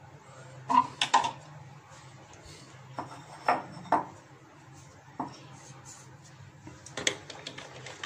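Dough kneaded by hand in a glass bowl, with irregular knocks and clinks of the glass bowl against the countertop as the knuckles press down, in small clusters about a second in, around three to four seconds in and near the end.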